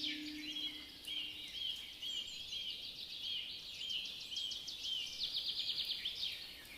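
Small birds calling: a run of short, arched, high chirps repeated about two to three times a second, overlapped by fast, high trills.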